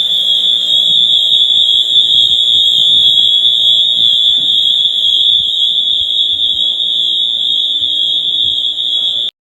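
Fire alarm signal sounding continuously in one steady, loud, high-pitched tone, which cuts off suddenly just before the end.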